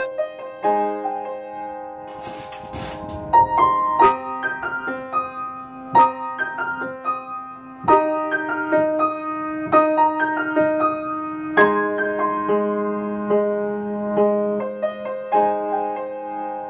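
Upright piano played with both hands: held chords under a melody of single struck notes at a moderate pace.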